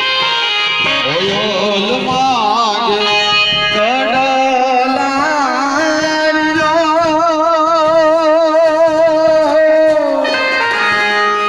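Loud amplified music from a band cart's horn loudspeakers: a wavering melody line with rich overtones, sliding between notes and holding long notes, with a long held note in the second half.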